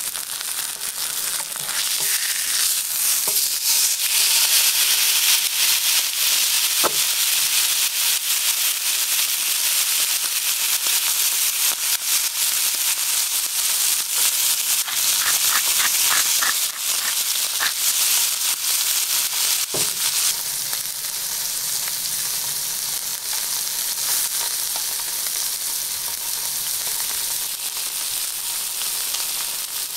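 Striploin steak searing over high heat in a cast-iron pan: a steady sizzle with scattered pops of spitting fat, easing off a little about twenty seconds in.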